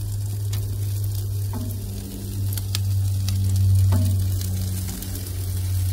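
Chicken sizzling on a charcoal grill, with metal tongs clicking against the meat and grate a few times as the pieces are turned. A steady low hum runs underneath and is the loudest sound.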